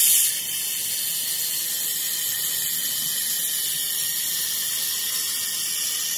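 Handheld fiber laser welder with a Hanwei double wobble head welding a steel tube to a steel plate: a loud, steady, high hiss from the weld.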